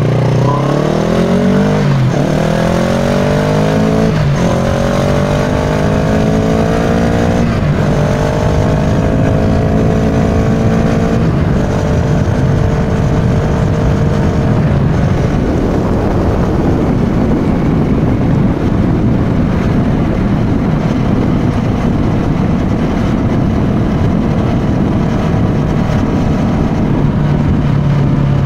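Kawasaki Versys 650's parallel-twin engine through a Giannelli aftermarket exhaust, accelerating hard through the gears. The note climbs and drops with four quick upshifts in the first dozen seconds, then settles into a steady cruise under a rush of wind noise.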